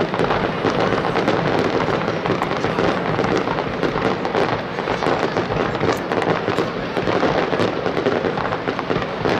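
Aerial fireworks bursting in a continuous barrage: many sharp cracks and crackles overlapping, with no pause.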